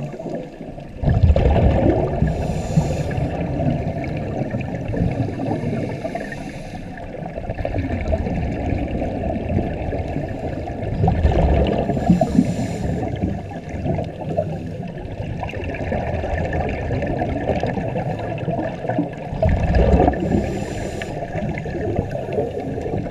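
Muffled underwater sound through a GoPro's waterproof housing: scuba regulator exhalations bubbling out three times over a steady low rumble of water.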